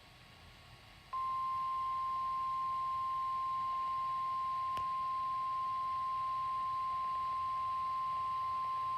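NOAA Weather Radio 1050 Hz warning alarm tone: one steady, high-pitched tone that starts suddenly about a second in, after a moment of faint hiss. It is the alert signal that opens a new severe thunderstorm warning broadcast.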